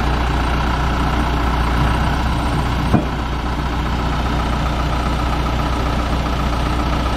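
Asa Seaside Railway DMV, a dual-mode bus-rail vehicle, with its engine running steadily. A single short knock is heard about three seconds in.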